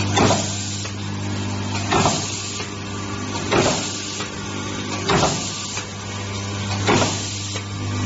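Semi-automatic mute terminal crimping machine cycling: a sharp crimp stroke about every second and a half to two seconds, five in all, over a steady low electric hum.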